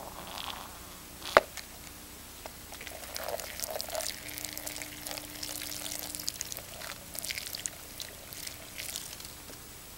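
A solid lump lands in a bowl with one sharp knock about a second and a half in. Then liquid streams and splashes into the bowl for about seven seconds, unevenly.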